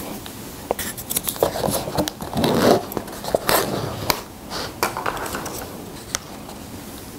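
Close-miked rustling, crackling and scraping of an instant-noodle cup's packaging being handled: the cup opened and a sauce sachet squeezed out over the noodles. A string of quick crinkles and clicks, busiest in the middle.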